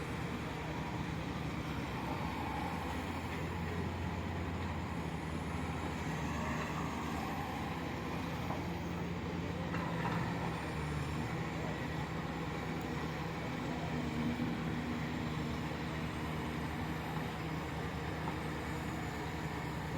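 Excavator's diesel engine running steadily, a continuous low hum with slight shifts in pitch.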